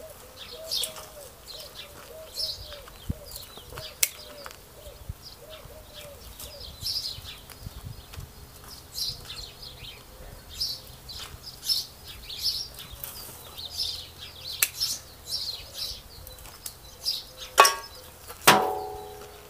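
Small birds chirping on and off, with a low repeated call in the first few seconds. Near the end a sharp clack, then a loud clang that rings out briefly.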